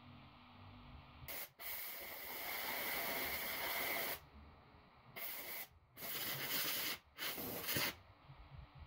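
Compressed-air blow gun on a coiled air hose hissing in blasts while blowing through a hollow wooden cane tube: a short puff about a second in, a long blast of about two and a half seconds, then three shorter blasts, each cutting off sharply.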